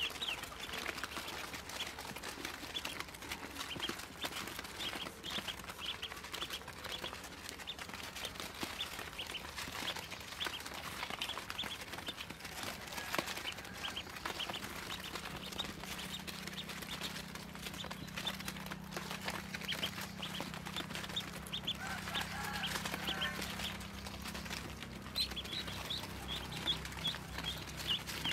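A brood of Muscovy ducklings peeping constantly, many short high calls overlapping. A lower call breaks in briefly about two thirds of the way through, and a steady low hum comes in about halfway.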